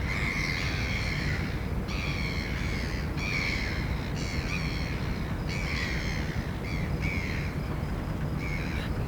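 A bird giving a series of harsh, cawing calls, about eight in a row, each under a second long, over a steady low rumble.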